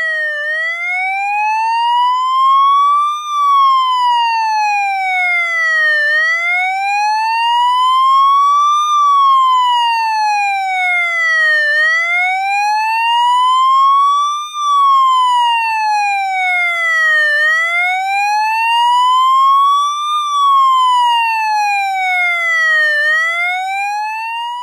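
Police siren in a slow wail: one tone rising steadily for about three seconds and falling back for about three, over and over.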